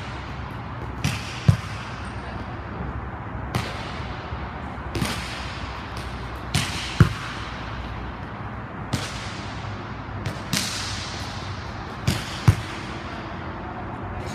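A volleyball struck hard again and again: sharp, echoing slaps of hand and arms on the ball, about ten in all, several coming in pairs about half a second apart as the coach's hit is met by the defender's dig.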